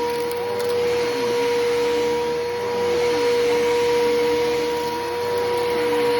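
Bissell PowerForce Helix Turbo upright vacuum cleaner running during vacuuming, a steady motor whine over rushing air, with a lower tone that dips and recovers every second or two.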